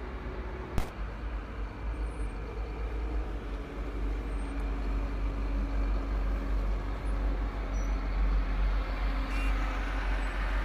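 Diesel engines of M1117 Armored Security Vehicles running, with one vehicle rolling past close by: a steady low rumble that grows louder in the second half. A single sharp click about a second in.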